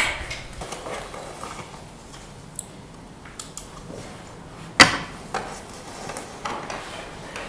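A few sharp clicks, the loudest about five seconds in, over faint room noise.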